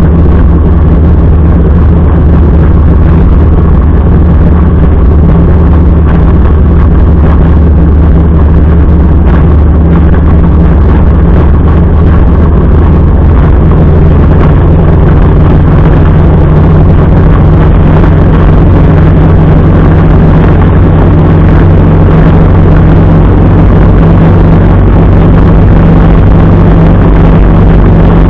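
Motorcycle engine running steadily at cruising speed: a loud, low drone over a haze of road noise. Its note shifts slightly about halfway through.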